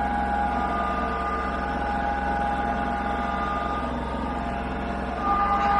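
A steady motor or engine running, a constant hum with two held high tones that fade for a few seconds and come back near the end.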